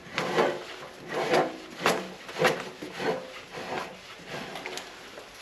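Screw-type pole jack being cranked up by hand: a string of short scraping, rasping strokes, roughly two a second, growing fainter toward the end.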